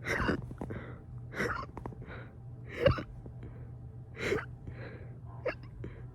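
A person hiccuping in a quick, regular run, about one hiccup every second and a half, each a sharp catch in the throat followed by a short breath; the hiccups were brought on by burping. The loudest comes about three seconds in.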